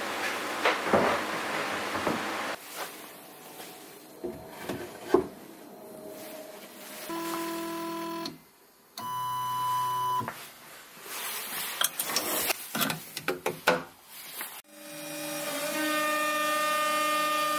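Plywood panels knock and clatter as they are handled. Then a CNC router's axis motors whine in short moves while the bit is zeroed on a touch-off probe. About fifteen seconds in, the spindle spins up and runs with a steady whine.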